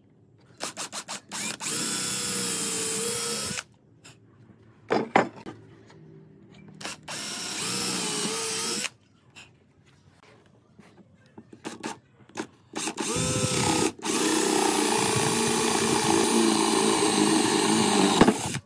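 Cordless drill boring into pallet wood: a few quick trigger blips, then three steady runs of the motor whine that sag in pitch as the bit bites, with clicks and knocks of handling between them. The last and longest run is a wide bit boring a hole and throwing out wood chips.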